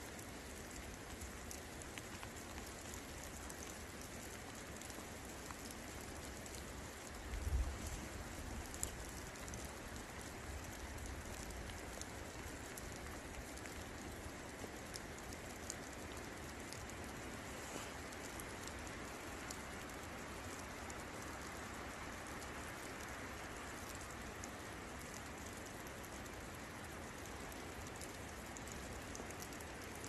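Steady rain falling, with the ticking of individual drops close by. A brief low rumble about seven seconds in is the loudest moment.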